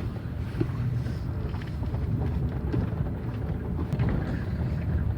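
Chevrolet Aveo T250 driving slowly over a potholed road: steady low rumble from tyres and running gear, with a few faint knocks from the front suspension, the knock the owner traces to the strut's top mount taking load.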